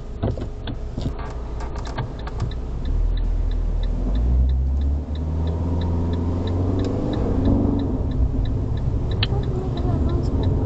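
Car's indicator ticking steadily while the engine pulls away from standstill, its note rising as the car gathers speed; a few sharp clicks come in the first couple of seconds, heard inside the cabin.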